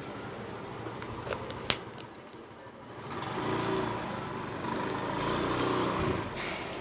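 A few small sharp plastic clicks, the loudest about two seconds in, as a laptop keycap is pressed onto its scissor clips. From about three seconds in, a louder, steady engine-and-road noise of passing traffic rises and holds.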